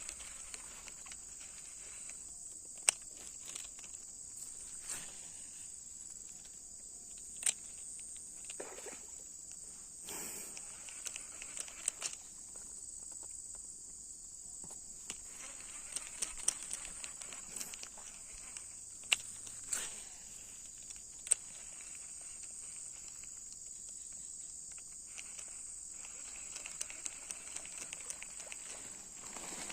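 Steady high-pitched drone of an insect chorus, with scattered sharp clicks and taps now and then.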